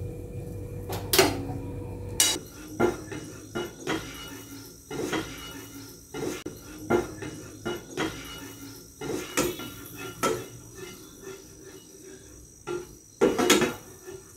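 Fried chicken pieces dropped from a wire mesh basket into a nonstick frying pan, with sharp knocks of the basket against the pan. Then a spatula stirs the chicken in the sauce, scraping and clacking against the pan about once a second, with a loud cluster of knocks near the end.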